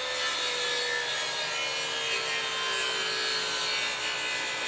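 TACKLIFE MTS01A 10-inch jobsite table saw cutting through a board on a 45-degree bevel. The blade runs steadily through the wood under a constant tone that slowly drops in pitch across the cut.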